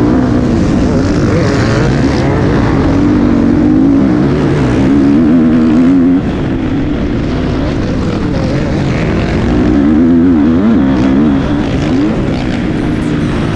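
Four-stroke single-cylinder engine of a 2017 KTM 250 SX-F motocross bike under hard throttle, its note rising and falling as the rider accelerates and backs off, with a sudden drop in revs about six seconds in.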